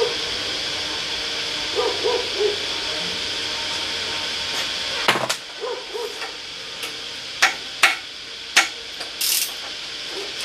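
Sharp metallic clicks and knocks of hand tools and parts being handled on a car's rear axle, a handful of them spread through the second half, over a steady background hiss. A low hum cuts out about five seconds in.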